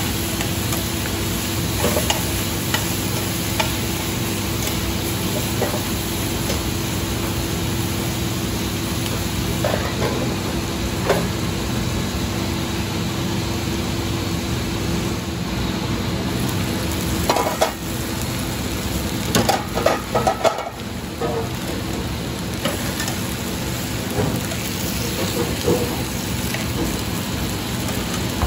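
Chicken thighs sizzling steadily in oil in lidded steel frying pans. A few sharp metal clatters, from tongs and pan lids being handled, come between about 17 and 21 seconds in.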